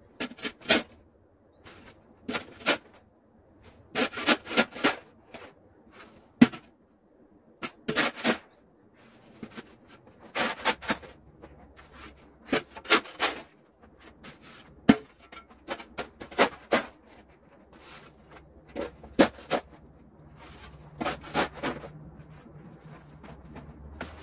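Snow shovel scraping across packed snow and scooping and tossing loads of snow, in a run of short scrapes and crunches every second or two. A faint low steady rumble sits underneath from about ten seconds in.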